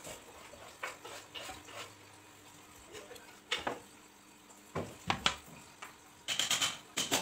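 Intermittent sharp scratches and light knocks as a nail-tipped wooden scribe is turned against an MDF board to score out a circular speaker hole, heard sped up. A quick cluster of strokes comes near the end.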